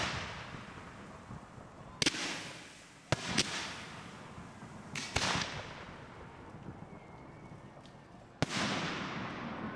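Fireworks display: about six sharp reports from cake shots and aerial shell bursts, spaced irregularly, each trailing off in a long fading echo.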